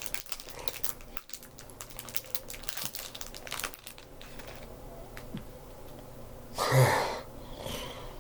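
Crinkling of plastic and small clicks of Lego pieces being handled, busiest in the first few seconds. A short, louder vocal sound about seven seconds in.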